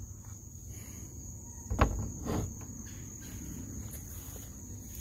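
Steady, high-pitched insect trill running without a break, with two knocks about half a second apart roughly two seconds in.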